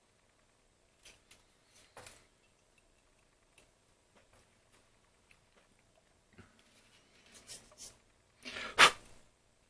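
Scattered light clicks and taps from small telephone parts being handled, with one louder, longer scrape or rustle near the end.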